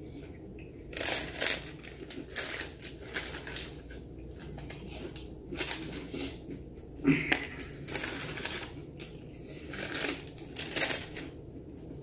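Close-miked eating of crispy fried chicken: irregular crunching bites and chewing, mixed with crinkling of paper wrappers and a sauce packet being handled.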